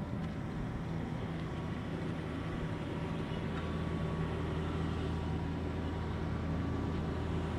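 Excavator's diesel engine running steadily close by, its note growing a little stronger a few seconds in.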